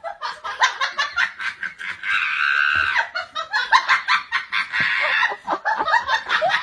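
A person laughing hard in quick, high-pitched bursts, with a drawn-out squeal about two seconds in.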